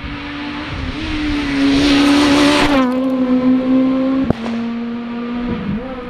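Rally car passing flat out. Its engine note gets loudest about two and a half seconds in, drops in pitch as it goes by, and carries on as it pulls away, with a single sharp crack about four seconds in.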